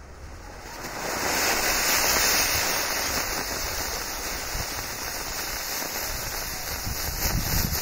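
Homemade sorbitol–potassium nitrate solid rocket motor firing: a hiss that builds over the first second or two, then burns on as a steady, crackling hiss. The combustion is weak and fuel-rich, not energetic enough to light the motor's second propellant grain.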